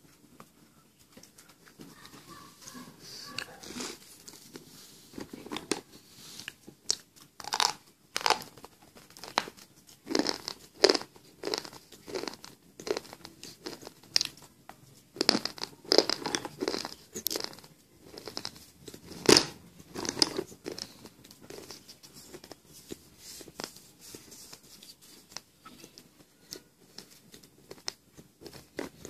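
A person biting and chewing pieces of slate pencil: irregular crisp crunches that come thick and loud through the middle, with one especially sharp bite, and grow softer toward the end.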